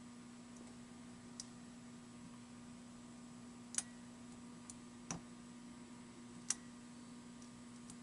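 Faint, sharp clicks of a lock pick working the pins of an American 700 padlock under tension: a handful of separate ticks a second or two apart, three of them louder, about four, five and six and a half seconds in.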